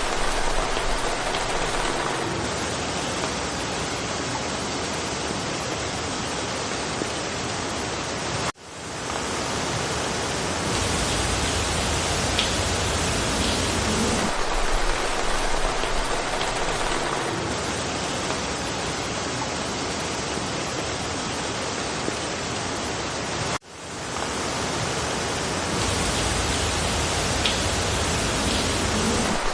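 Steady rain falling through forest foliage, an even hiss with no single drops standing out. Twice, about fifteen seconds apart, the sound cuts out for an instant and swells back in where the recording loops.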